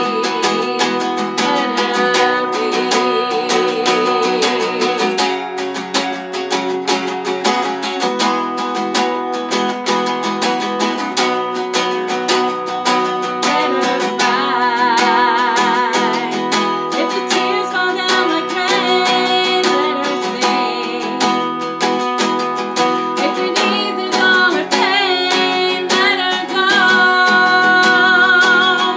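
Acoustic guitar strumming chords under a singing voice that holds long notes with vibrato.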